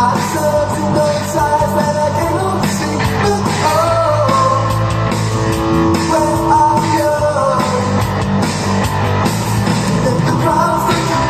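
Loud rock song with a singer, guitar and drums, played through a pair of bookshelf speakers driven by an Aiyima A07 MAX TPA3255 class-D amplifier.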